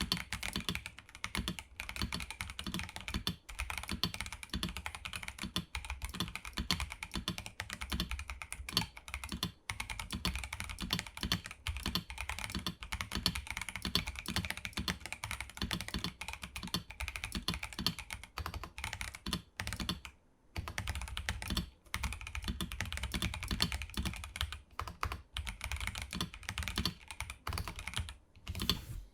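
Fast typing on a KBD67 Lite R2 custom mechanical keyboard with Gazzew Boba U4T tactile switches in a gasket-mounted polycarbonate plate, with PBT keycaps. The keystrokes come in a dense, rapid stream, pause briefly about twenty seconds in, and stop just at the end.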